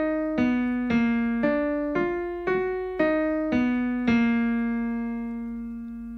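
Piano playing a vocal scale-exercise pattern of separate notes, about two a second, stepping up and down, then a long held low note from about four seconds in that slowly fades.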